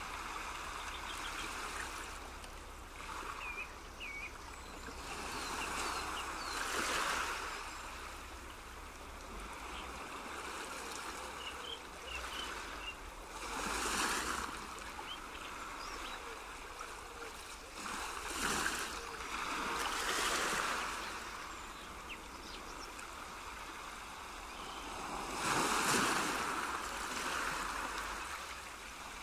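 Background ambience of rushing water, swelling and falling in slow surges every several seconds, with a few short high chirps.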